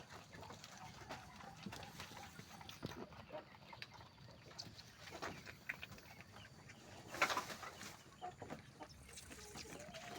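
Faint farmyard animal sounds with scattered small clicks and scuffles, and one short louder rustling burst about seven seconds in.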